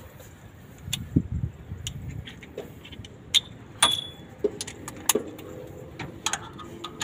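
Hand tools and metal parts clinking and knocking in irregular taps, with one brief ringing clink a little past the middle.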